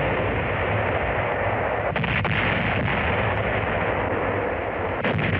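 Heavy naval guns firing, laid on as a battle sound effect: a dense continuous rumble, with sharper reports about two seconds in and again near the end.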